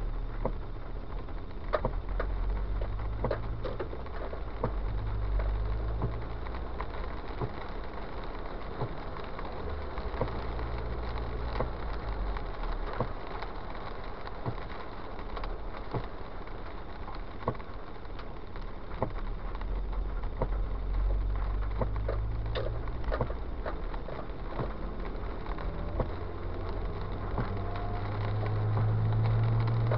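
Car driving on a wet road, heard from inside the cabin: a low engine and tyre rumble that swells and eases, over a steady hiss of tyres on wet pavement, with scattered light clicks.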